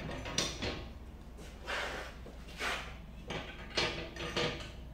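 Flat metal rotisserie brackets being slid into slots on a flat-pack metal fire pit: a series of short metal scrapes and clanks, about six in all.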